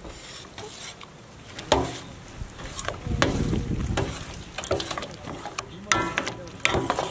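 Thick, creamy marinade being mixed in a steel plate: irregular wet stirring and squishing, with small clicks against the metal.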